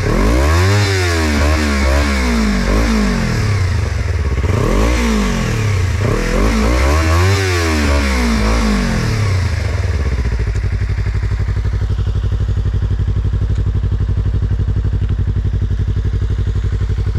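Yamaha MT-25 parallel-twin engine breathing through an aftermarket Yoshimura exhaust, blipped up and down several times with the throttle, then settling about ten seconds in to a steady idle.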